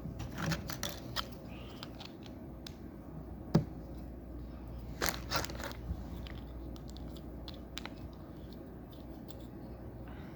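Plastic Lego pieces clicking and rattling as they are handled and pressed together, in short irregular clusters of sharp ticks. One sharp click about three and a half seconds in is the loudest.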